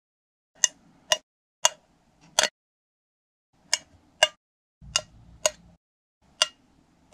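A series of about ten short, sharp clicks at uneven spacing, several in pairs about half a second apart, with dead silence between them.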